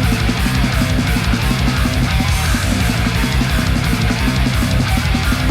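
Background music: loud heavy rock with distorted electric guitar and a steady drum beat.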